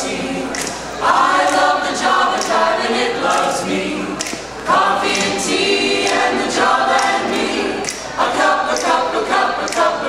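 Mixed-voice choir singing a cappella, several parts in close harmony.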